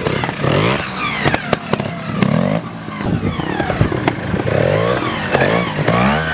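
Trials motorcycle engines blipping and revving in short bursts at low speed, the note rising and falling every second or so, with scattered knocks and clatter.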